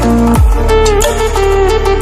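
Background electronic pop music: a synth melody over a steady bass line with a beat, and a deep falling bass hit about half a second in.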